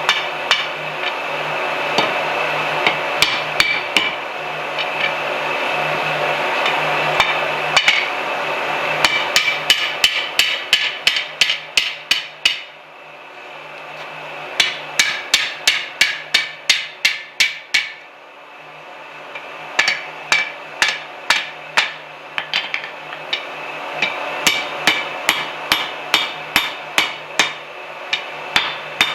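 Blacksmith's hand hammer striking hot steel on an anvil in quick runs of about three to four blows a second, with short pauses between runs to turn or reheat the work. A steady low hum runs underneath.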